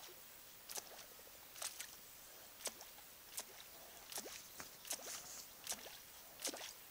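Topwater lure being jerked across the water's surface, making a short splash or pop about once a second.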